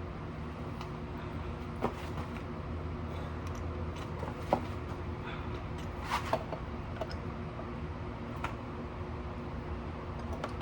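A few light clicks and knocks from engine parts being handled and fitted, scattered over a steady low hum.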